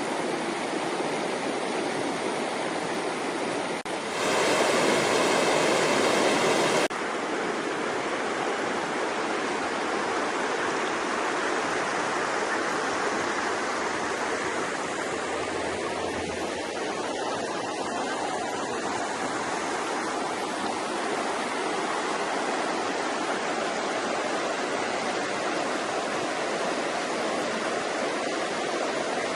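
Falling water rushing steadily. A louder, brighter stretch begins about four seconds in and cuts off abruptly about three seconds later.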